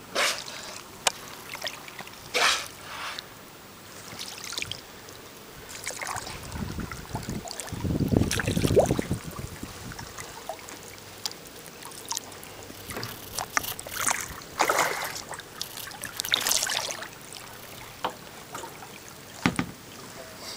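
Water splashing and trickling around a plastic kayak in irregular short bursts, with a louder low rumble about seven to nine seconds in.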